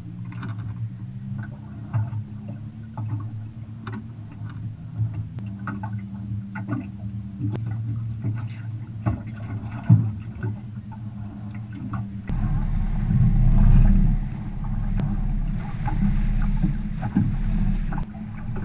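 Sounds on a small aluminium fishing boat on open water: water lapping and gurgling against the hull over a low steady hum, with small knocks and clicks. From about twelve seconds in a louder rumble of wind on the microphone takes over.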